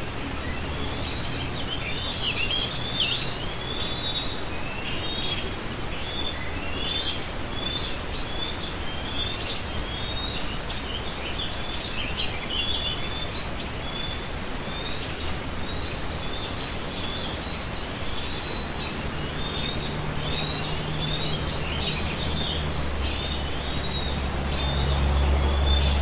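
Birds chirping continuously in a busy run of short, high chirps, over a steady low hum that grows louder near the end.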